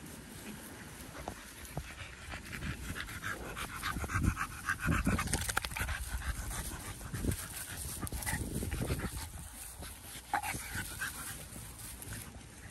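A dog panting in quick irregular breaths, with a few dull thumps around the middle.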